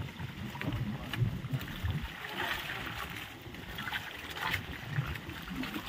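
Water sloshing and splashing unevenly, with irregular low thuds, as someone moves through shallow water.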